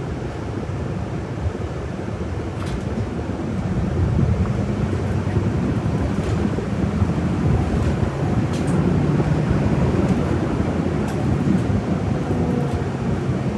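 City bus cabin: the engine running and road noise as the bus drives, growing louder about four seconds in.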